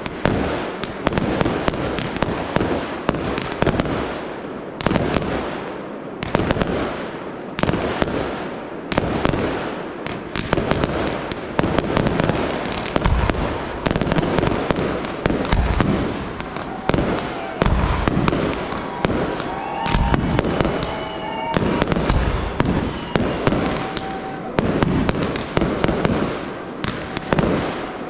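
Fireworks display: aerial shells launched and bursting in quick succession, a steady run of sharp bangs, often several a second, with crackle between them.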